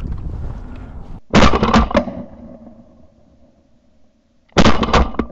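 Shotgun shots at passing ducks, fired by two hunters: two loud bursts of several quick reports about three seconds apart, each trailing off in a fading echo.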